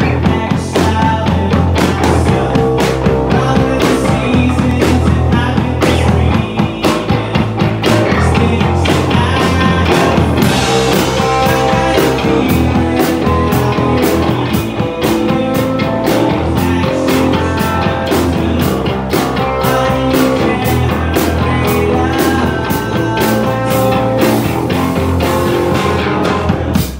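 Live rock band playing loudly, with electric guitar over drums and frequent cymbal and drum hits. The music breaks off sharply at the very end.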